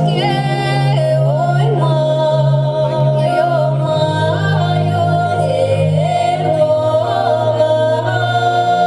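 Live ethno-fusion music: a voice singing a Russian folk-song melody over a steady, sustained drone accompaniment whose low note shifts about halfway through.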